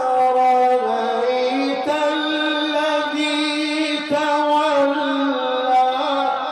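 A man's voice chanting Quran recitation in a long, held melodic line, sustaining notes and shifting pitch in small ornamented steps without pause.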